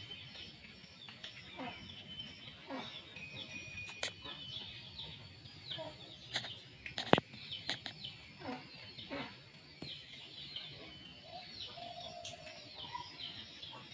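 Small birds chirping over and over with short, quick downward notes, mixed with a few sharp knocks; the loudest knock comes about seven seconds in.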